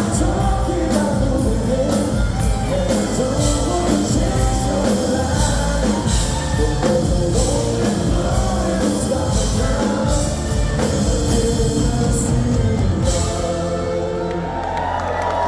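Live band playing a song with a lead singer, drums driving the beat. About thirteen seconds in, the drum hits drop away and the music thins out as the song winds down.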